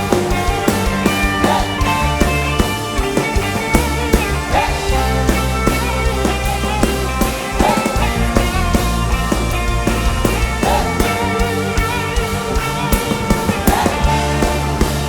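Instrumental band music with a steady drum beat over held bass notes and chords.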